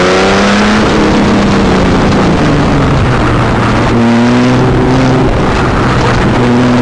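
Car engine driven hard around an autocross course. Its pitch falls early on, holds through the middle and climbs again near the end as it revs between corners, over heavy wind and tyre noise.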